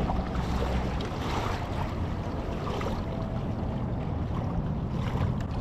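Wind buffeting the microphone and water lapping around a kayak, a steady rushing noise with no distinct events.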